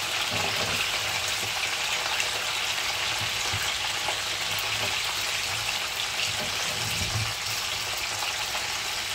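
Whole red sea bream frying in a nonstick frying pan, giving a steady sizzling hiss.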